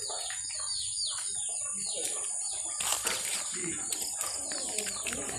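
Small birds chirping, with a run of quick falling chirps in the first couple of seconds, over a steady high-pitched hiss.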